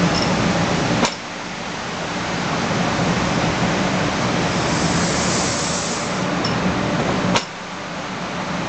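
N700 series Shinkansen train rolling slowly past at close range: a steady hiss over a low hum. Two sharp clicks come about a second in and again about seven seconds in.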